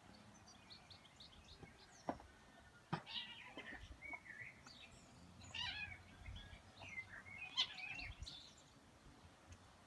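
A kitten squeaking and mewing in short, faint, high-pitched cries while its mother cat wrestles it down and pins it, with a couple of light knocks early on.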